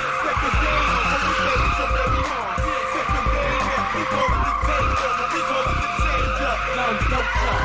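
Car tyres squealing continuously as the car spins donuts on pavement, the squeal wavering in pitch as it slides.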